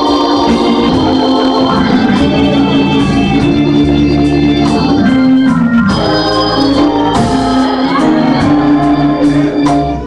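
Organ playing loud, sustained chords over a bass line, changing chords about six seconds in.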